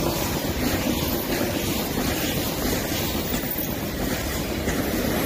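KTX high-speed train passing close by: a steady noise of its wheels running on the rails as the cars go past.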